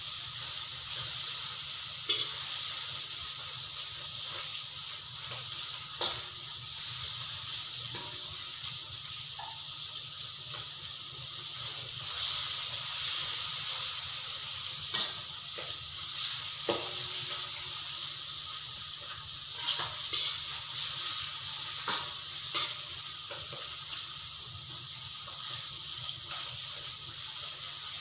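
Squid pieces sizzling in hot oil in an aluminium wok, a steady hiss, with now and then a short click or scrape of a metal spatula stirring them.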